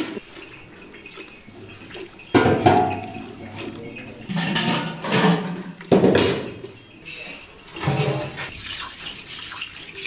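Cow being milked by hand into a steel bucket: squirts of milk spraying into the metal pail in irregular bursts, with light clinks of the bucket.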